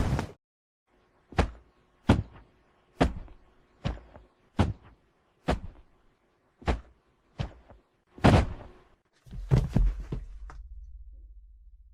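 Body-fall sound effects: a run of about nine separate heavy thuds, one every second or so, then a cluster of heavier impacts near the end with a low rumble that dies away.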